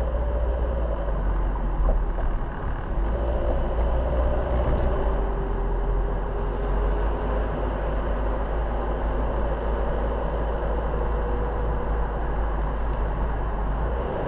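A car driving along, heard from inside the cabin: steady engine and road rumble with a faint drifting hum.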